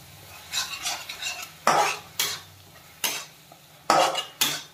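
Metal spatula scraping and stirring a thick frying onion-tomato masala in a metal kadai, in a series of short, uneven strokes.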